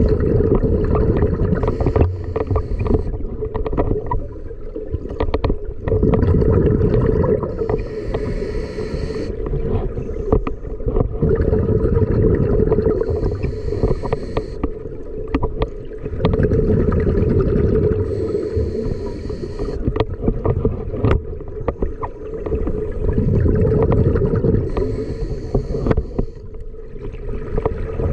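Scuba diver breathing underwater through a regulator: a hiss of inhaled air comes back four times, about every five or six seconds, with the low bubbling rumble of exhaled air between them. Scattered small clicks and knocks run through it.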